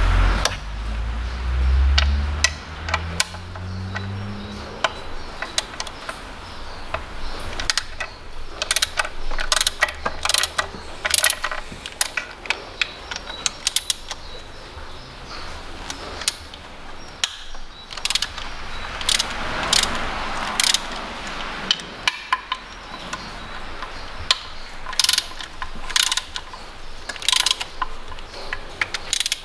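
Hand ratchet with a 10 mm socket clicking in quick bursts as bolts holding down the supercharger are unscrewed. A low hum rises in pitch over the first few seconds.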